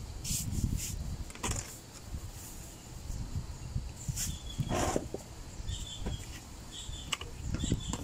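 Clicks, knocks and rustling from handling small parts during bench work, with several short high chirps in the second half.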